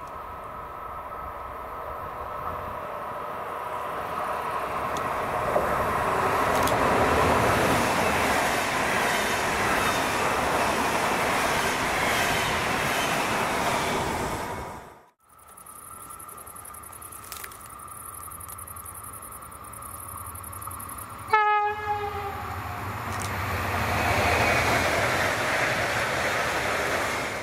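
Trains running by on a main line: the first builds to a loud, steady rolling rumble with a high whine and stops abruptly. Then another train approaches with one short horn blast about three quarters of the way through and runs by.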